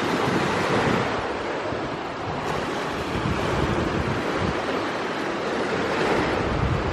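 Steady rushing of wind and surf, with wind buffeting the microphone.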